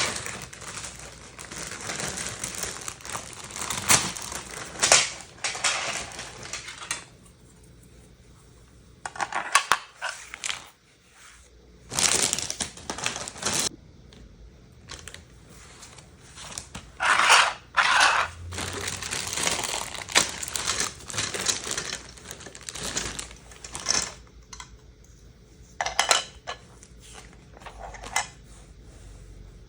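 Lego set packaging being handled and opened: crinkling and rustling in irregular bursts, with short pauses between them.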